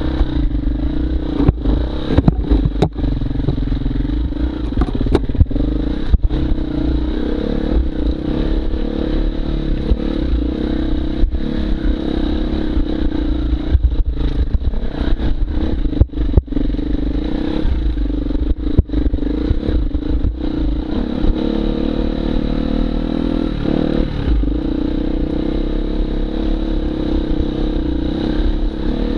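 Husqvarna FE250 four-stroke single-cylinder enduro motorcycle running along a rough trail, its engine note rising and falling with the throttle. Frequent sharp knocks and clatter come from the bike over rough ground.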